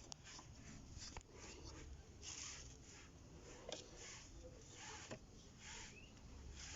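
Faint, irregular soft rustling and scratching as cornstarch is sprinkled and rubbed onto a car's wet, squealing drive belt, over a low steady rumble; no belt squeal is heard.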